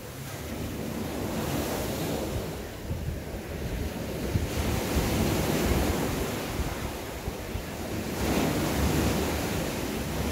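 Small ocean waves breaking and washing up a sandy beach, the surf swelling and falling back several times, with wind rumbling on the microphone.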